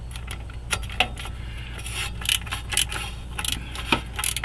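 Socket wrench on a long extension and universal joint clinking and rattling against metal as exhaust manifold collector bolts are worked loose: scattered sharp metallic clicks over a steady low hum.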